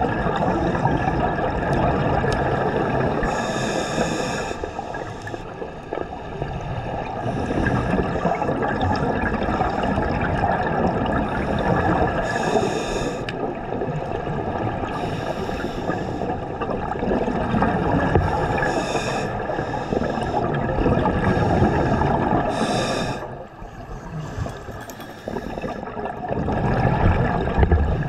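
Underwater sound of a scuba diver breathing through a regulator: a continuous gurgling rush of exhaled bubbles, with a short hiss every few seconds.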